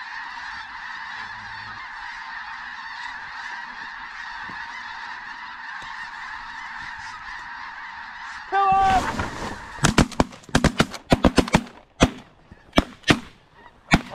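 A large flock of snow geese calling overhead, a dense, steady chorus of honking. About eight and a half seconds in comes a short loud cry, then a rapid volley of shotgun blasts from several hunters, well over a dozen shots in about four seconds.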